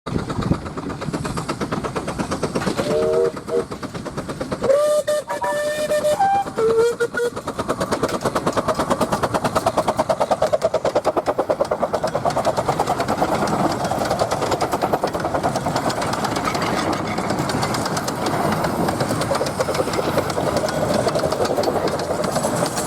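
Whistles from 15-inch-gauge Romney, Hythe and Dymchurch Railway locomotives sounding three times in the first seven seconds, each on a different pitch. After that comes the steady, fast rhythmic running of a long train passing.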